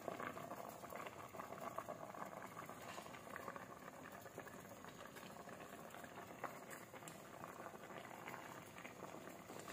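Sinigang na isda (fish sour soup) boiling in a stainless steel pot: a faint, steady bubbling made of many small pops.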